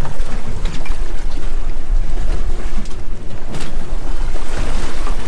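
Wind buffeting the microphone in a loud, steady rumble over the wash of choppy sea against a small boat's hull.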